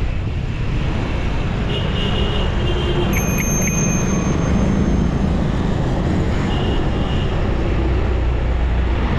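Steady road and traffic noise mixed with wind rushing over the microphone on a downhill bike ride, heaviest in the low end. A few brief high-pitched tones sound near the middle and again later.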